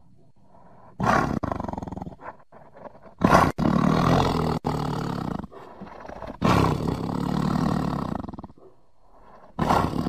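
Tiger roaring: a run of about four deep roars, starting about a second in, each starting and stopping abruptly. The loudest comes about a third of the way through.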